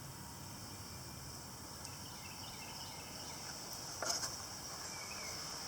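Quiet outdoor background with a steady high insect drone, and one short knock about four seconds in.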